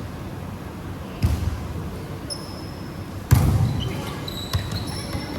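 Basketball game: a ball bouncing on the court with two thuds, the louder about three seconds in, and short high sneaker squeaks on the floor, several of them near the end.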